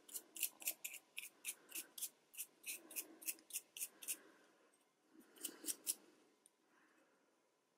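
Small lint brush scrubbing the plastic bobbin case of a Juki DX2000QVP sewing machine, quick crisp bristle strokes about three a second as lint is cleaned out of it. The strokes stop after about four seconds, a few more follow, then they die away near the end.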